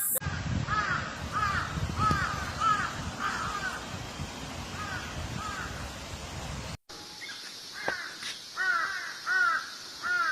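Crows cawing: a quick run of repeated caws over a low background rumble, then an abrupt cut about seven seconds in to a cleaner recording of caws in a slower, evenly spaced series.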